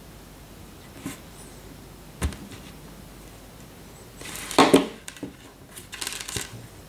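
A few small clicks and scrapes of a needle being worked into the flat channels of a small plastic MQS automotive connector to release a crimped pin's locking tab, with a louder burst of rustling and scraping about four and a half seconds in.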